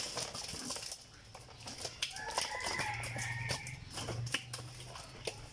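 Irregular slaps and clicks of live fish flapping and being handled on a wet concrete floor as they are picked out of a cast net. A faint call, with a low hum under it, sounds in the background for about two seconds in the middle.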